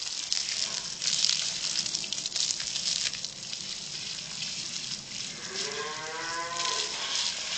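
Water from a garden hose spraying and splashing onto a horse's coat, a steady hiss. About six seconds in, a long call rises and then falls in pitch for a little over a second.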